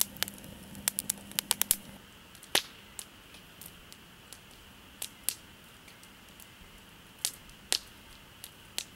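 Firewood crackling and popping as it burns in a fire pit: a quick run of sharp pops in the first two seconds, then single pops about a second apart.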